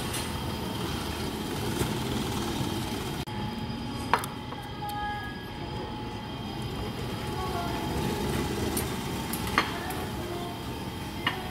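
Steady din of a busy conveyor-belt sushi restaurant, with sharp clinks of tableware about four seconds in, near ten seconds, and again near the end.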